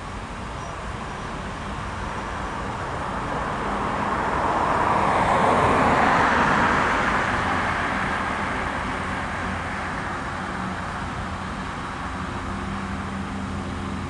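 A road vehicle passes close by: its tyre and engine noise swells to a peak about six seconds in and then fades, over a steady low engine hum.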